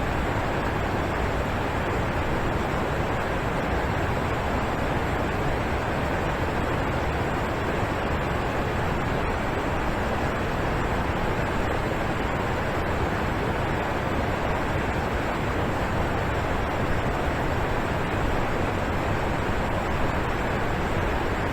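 Alpine waterfall pouring and crashing as a steady, unbroken roar of rushing water.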